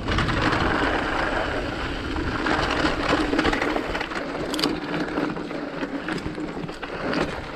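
Mountain bike rolling fast over rocky, gravelly singletrack: tyres crunching over stones with a constant clatter and rattle of the bike.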